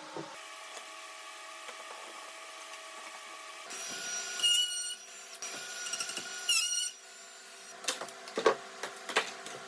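Woodworking shop sounds: a tool gives two high whines of about a second each, the second dipping in pitch as it stops. Several sharp knocks follow near the end.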